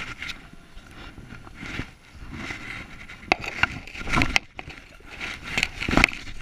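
Dry leaves and undergrowth rustling and crackling, with irregular sharp clicks and knocks, as a caught brown trout is handled and struggles in the hand. The loudest knocks come about four and six seconds in.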